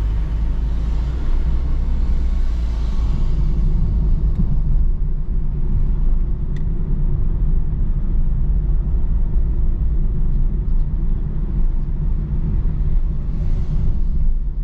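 Car engine and road noise heard from inside the cabin as the car drives off: a steady low rumble, with a higher hiss that fades away over the first few seconds.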